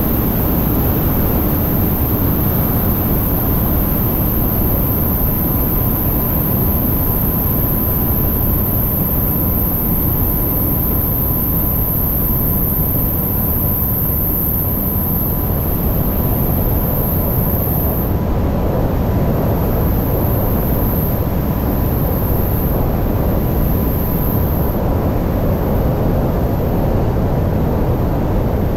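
Single-engine light aircraft in cruise flight: steady, loud engine, propeller and wind noise as heard inside a cockpit, with a faint steady high tone underneath that fades out near the end.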